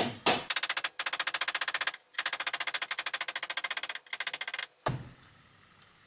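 A heavy 3 lb hammer striking an M6 bolt, used as a drift to knock the gear shifter's pin out of the gearbox selector shaft. Rapid, evenly spaced metallic taps come at about a dozen a second, in runs broken by short pauses about two and four seconds in. One duller knock about five seconds in ends them.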